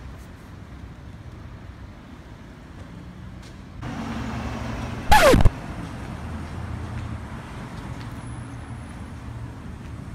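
Street traffic running steadily, with a vehicle passing louder from about four seconds in. Just after, there is a brief loud sound that falls in pitch, the loudest thing heard.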